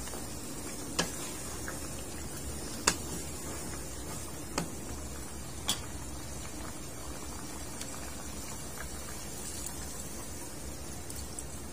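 Pork ribs simmering in a soy braising sauce in a nonstick wok: steady bubbling, with four sharp clicks in the first half. Near the end, a cup of water is poured into the simmering sauce.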